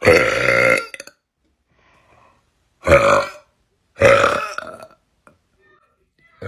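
A person belching three times, loud thick burps of under a second each, the second and third close together, with a fourth burp starting near the end.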